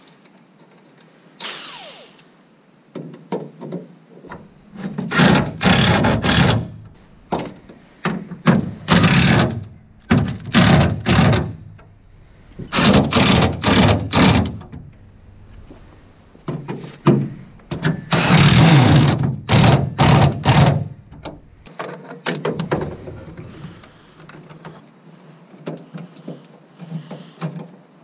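Cordless power drill run in a series of short bursts of a second or two, stopping and starting again, while driving fasteners into a boat's transom board.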